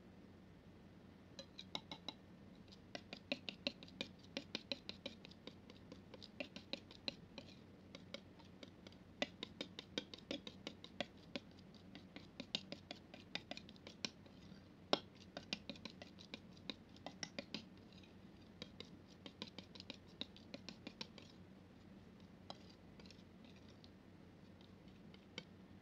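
Metal palette knife scraping and tapping through thick wet paint, a fast, irregular run of small clicks and sticky smacks that starts a second or two in and thins out near the end.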